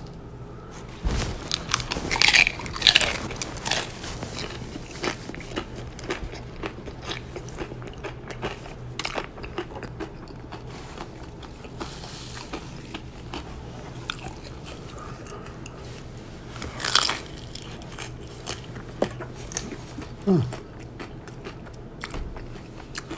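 Crunchy bites into a fried taco de papa (potato taco), followed by continuous crunchy chewing with many small crackles. The loudest bites come about one to three seconds in, and a second bite comes about 17 seconds in.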